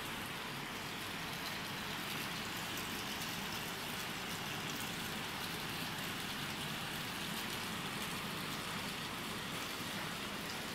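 Steady, even noise of a corn-snack (Kurkure) production line's machinery running.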